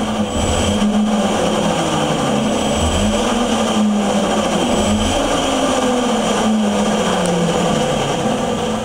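Electric drive motor and drivetrain of a converted Honda CBR600 motorcycle whirring under a few short blips of the throttle, the pitch rising and falling with each blip over a steady high-pitched whine. It dies away near the end as the throttle is let off.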